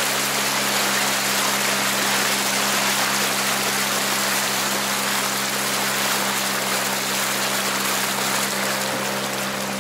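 Mercury ME 3.3 M single-cylinder two-stroke outboard motor running at a steady speed under break-in, over the rush of water along the boat.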